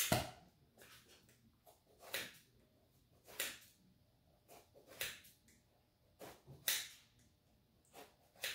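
Kitchen scissors snipping through a Chinese eggplant: short, crisp cuts about once a second at an uneven pace, the slices falling into the pan.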